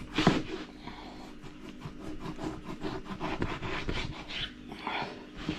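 Knife sawing through a slab of pork fat (salo) on a wooden cutting board in many short rasping strokes, with a louder knock about a quarter second in.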